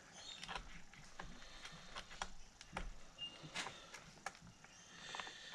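Faint, scattered clicks and taps of small metal parts and tools being handled inside an opened Technics SL-1200 MK2 turntable, about one or two a second, as screws and the circuit board are worked back into place.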